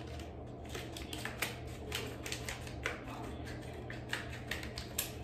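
Plastic prosciutto package being worked open by hand: an irregular run of sharp crinkles and clicks of stiff plastic.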